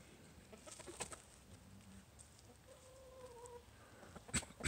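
A hen giving one drawn-out, slightly falling call about three seconds in, with scattered light clicks around a second in and two sharp clicks near the end.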